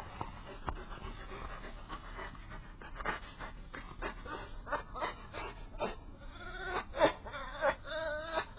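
A tame red fox gives repeated short, high whining squeaks, the excited calls of a fox being petted. They come faster and louder toward the end, with one loud squeal about seven seconds in.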